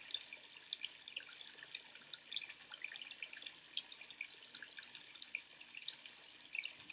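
Quiet room tone with faint, irregular small ticks scattered throughout.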